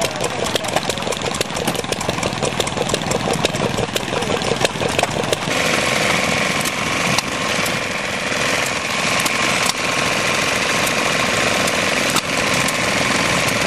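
Vintage stationary engines running. A Petter engine fires with rapid regular beats; about five seconds in, the sound changes abruptly to a smaller engine running with a steadier, higher hum.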